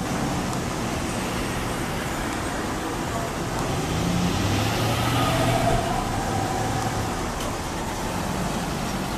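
Street traffic: a vehicle passes close by, growing louder from about four to six seconds in, over the steady sound of engines and tyres on the road.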